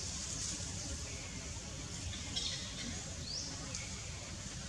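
A few short, high-pitched rising chirps, spaced about a second apart, over a steady low rumble.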